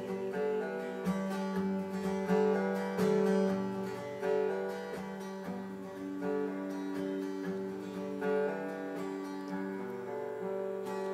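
Instrumental music: acoustic guitar picking and strumming a melodic passage with no singing.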